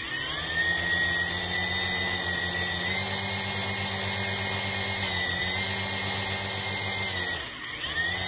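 Small electric motors and coaxial twin rotors of a V-Max HX708 toy RC helicopter running at full throttle while held in the hand: a steady high motor whine with rotor hum. It winds up at the start, dips briefly about seven and a half seconds in, and spins back up.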